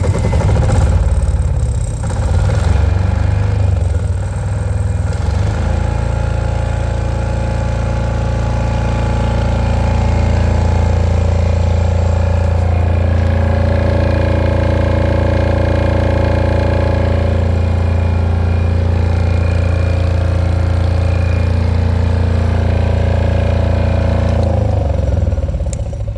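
Yanmar YDG3000SE single-cylinder diesel generator that has just started. It runs unevenly for about five seconds, then settles into a steady run, and is shut off near the end, winding down to a stop.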